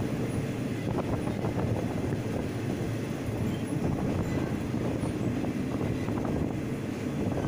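A passenger train carriage running along the track, heard from on board: a steady rumble of wheels on the rails with a few faint clicks.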